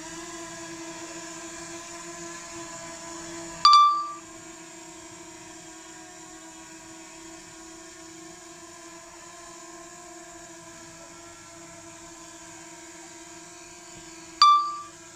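DJI Mini 2 quadcopter hovering close by, its propellers making a steady hum of several even tones. Two sharp electronic beeps about eleven seconds apart, one near the start and one near the end, from the flight app as video recording is stopped and restarted.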